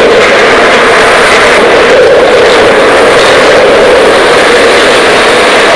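Tracked excavator's diesel engine running, heard as a loud, steady roar that overloads the recording.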